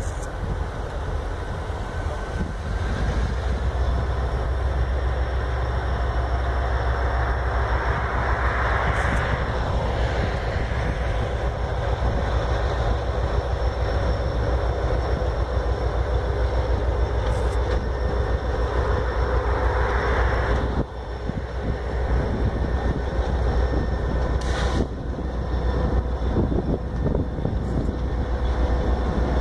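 Two diesel locomotives hauling a passenger train up a grade, their engines working under load with a steady, loud low drone that grows as the train comes closer.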